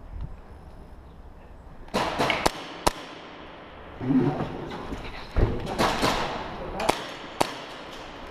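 Quick footsteps and gear rustling from an airsoft player on the move, with several sharp clicks and knocks at uneven intervals; the loudest knock comes about five and a half seconds in.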